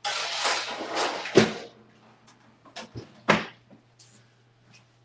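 Kitchen work sounds: a sudden burst of hissing noise lasting under two seconds, with two loud knocks, one about one and a half seconds in and one about three and a half seconds in.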